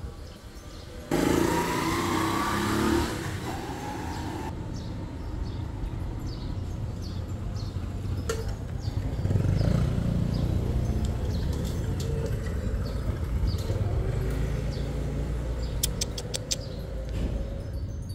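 Street ambience: a low rumble of passing traffic, louder for a few seconds about a second in and again around the middle, with small birds chirping again and again. A quick run of light clicks near the end.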